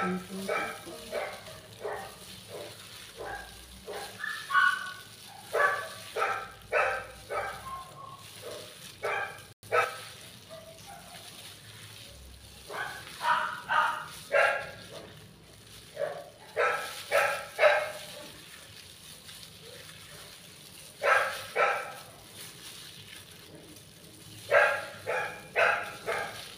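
Pet dogs barking in short runs of three to five barks, with pauses in between, while their food is being prepared.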